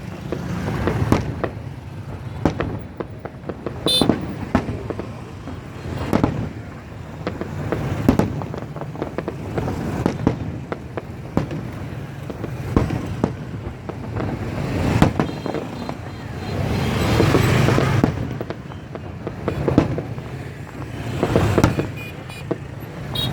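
Fireworks display: a continual series of bangs and crackles, with louder swells of rapid bursts about two-thirds of the way through and again near the end.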